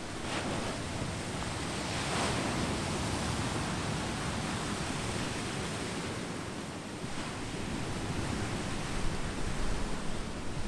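Ocean surf washing over a beach of smooth boulders and pebbles: a steady rush of water, with a wave breaking about two seconds in and the wash swelling again near the end.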